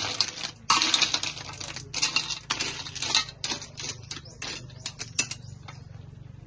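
Water snails in their shells clattering against a metal wok as they are stirred with a metal spoon: a dense rattle for about three seconds, then scattered clicks that stop a little after five seconds in.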